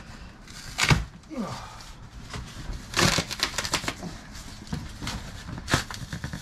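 Cardboard shipping box and its packing being handled: irregular knocks, scrapes and crinkles, with a quick run of sharp clicks about three seconds in.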